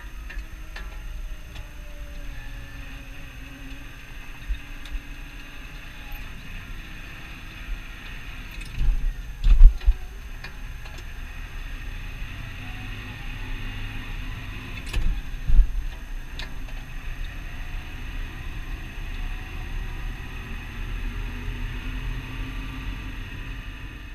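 Massey Ferguson 6480 tractor's six-cylinder diesel engine running steadily on the road, heard from inside the cab, its pitch drifting slowly up and down. Two heavy low thumps come about nine and fifteen seconds in.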